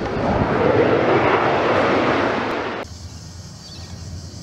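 Jet aircraft roar swelling to a peak and then cutting off abruptly just under three seconds in. It gives way to a much quieter, steady outdoor background of wind noise, with a short high chirp.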